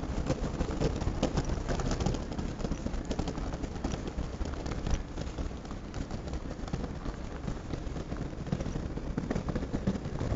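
Busy city street noise: a steady rumble of passing traffic with scattered clicks and knocks.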